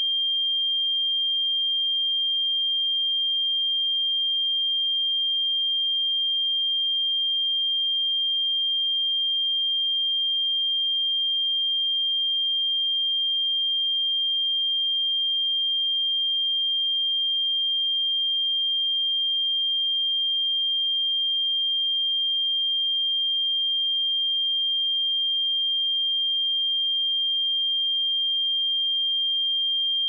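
A pure 3194 Hz sine-wave test tone, a single steady high-pitched tone at constant level, used for checking speakers and headphones.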